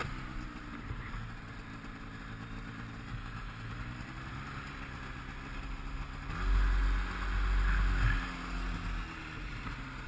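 Ski-Doo Renegade snowmobile's two-stroke engine, fitted with an 827 cc big-bore kit, running at part throttle in deep snow. It revs up sharply about six and a half seconds in and eases off again about a second and a half later.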